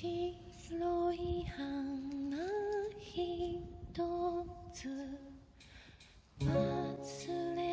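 Slow, gentle background music: a melody with gliding notes over soft accompaniment. It thins out almost to nothing just before six seconds, then comes back in with bass.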